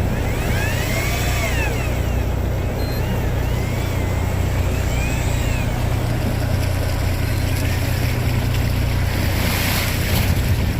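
Fishing boat's engine running steadily with a low hum, under wind and water noise.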